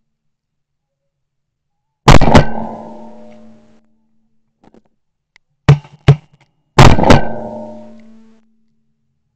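Shotgun shots in quick pairs, each bang followed by a ringing tail: one pair about two seconds in, then two more pairs close together around six and seven seconds.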